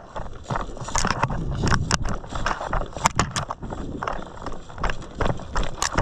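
Footsteps and gear rattling as a player moves across the field, a dense uneven run of sharp clicks and knocks over a low rumble.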